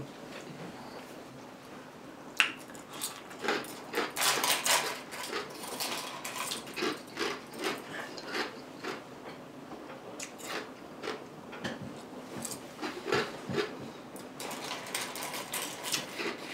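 Ice being bitten and chewed close to the microphone: an irregular run of sharp crunches, thickest in clusters a few seconds in and near the end.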